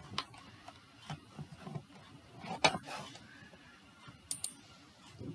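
Faint, scattered clicks and small knocks over quiet room noise, the sharpest about two and a half seconds in and a quick pair near the end.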